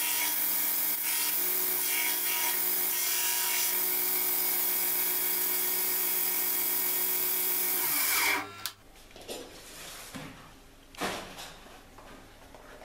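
Belt grinder with a coarse 40-grit belt running, grinding the steel knife blank at first. About eight seconds in the motor is switched off and winds down with a falling whine, followed by a couple of light knocks.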